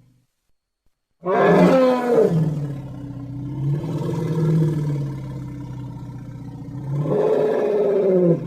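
An elephant gives one long, loud roaring call beginning about a second in. Its pitch drops at first, holds, then swells again near the end before it cuts off.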